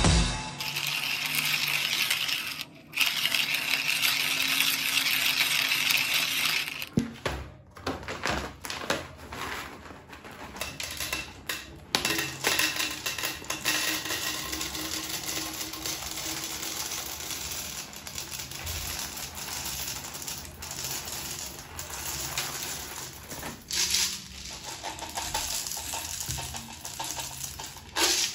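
Whole coffee beans poured from a paper bag into a clear plastic bottle: many dense, uneven clicks as the beans strike the bottle and each other. A hissing rustle comes first, then a louder click near the end.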